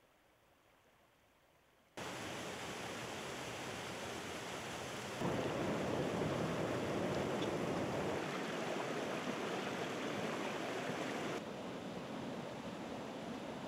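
About two seconds of near silence, then the steady rush of water from a rocky stream and small waterfall. It steps abruptly louder about five seconds in and drops back somewhat near the end.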